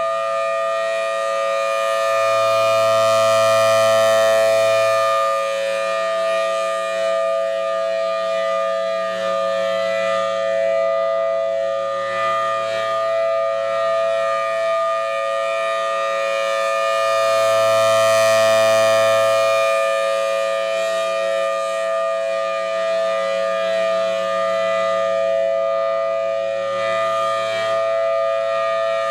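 Federal Signal Thunderbolt 1000TB outdoor warning siren sounding a steady, unwavering tone during a test. It swells louder twice, about fifteen seconds apart, as its rotating head sweeps past.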